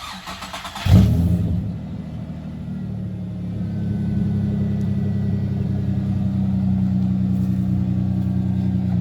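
Holden Commodore engine cranked over by the starter, catching about a second in with a loud burst and settling into a steady idle.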